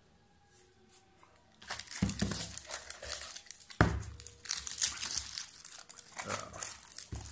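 Packaging on a roll of Flex Tape crinkling and rustling as it is peeled and opened, handled close to the microphone, with a couple of sharp knocks. It starts about a second and a half in, after a short quiet spell.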